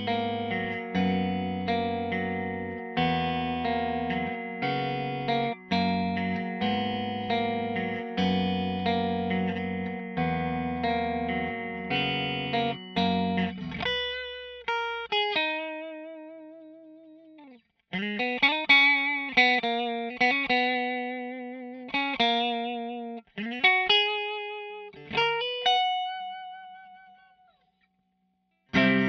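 Sterling by Music Man JP70D seven-string electric guitar played through a Line 6 POD HD500 effects processor. It opens with a steady riff of low chords and notes, then changes about halfway to a slower lead line of single notes held with wide vibrato, each ringing out and fading. The last note dies away almost to nothing just before the playing resumes.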